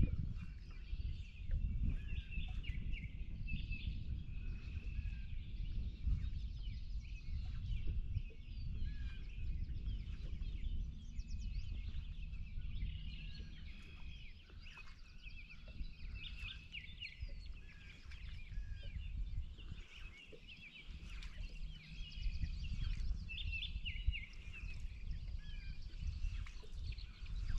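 Birds chirping and singing throughout, over a steady low rumble of wind on the microphone that eases for a moment a little past the middle.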